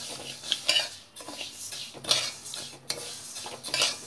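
A flat steel spatula scrapes across a dry stainless steel kadai in repeated sweeps, with the split moong dal rattling over the metal as it is dry-roasted. The dal is being turned from the bottom so that it browns without burning.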